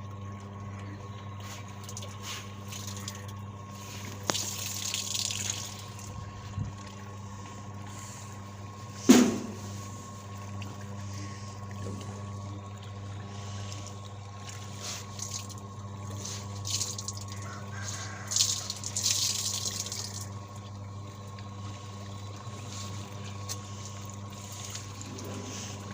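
Washing machine running with a steady motor hum, water splashing now and then, and a single sharp knock about nine seconds in.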